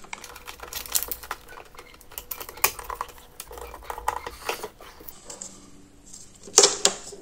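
Plastic clicks and rattles from BTicino Matix socket modules and their mounting frame being pushed into a wall box and screwed down with a screwdriver. There is a sharper clack near the end as the cover plate is brought up.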